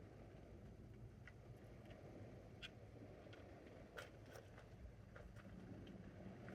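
Near silence: a faint low rumble with a few scattered light clicks, the loudest about four seconds in.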